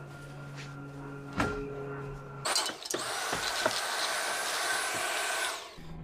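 A single knock, then a vacuum cleaner switched on about halfway through. It runs steadily with a high motor whine for about three seconds and winds down near the end.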